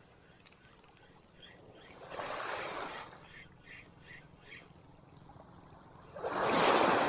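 Small waves washing up over a pebble beach in two surges, about two seconds in and a louder one about six seconds in. Between them comes a quick run of five faint high chirps.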